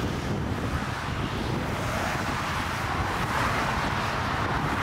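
Strong gusty wind buffeting the microphone, with the jet engine noise of a landing twin-engine airliner growing louder in the second half as it comes over the runway threshold.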